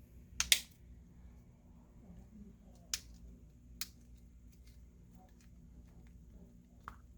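Plastic back cover of a Huawei Y7 Prime being pressed onto the phone, its clips snapping into place: sharp clicks, the loudest a quick double click about half a second in, then single clicks near 3 and 4 seconds and a lighter one near the end.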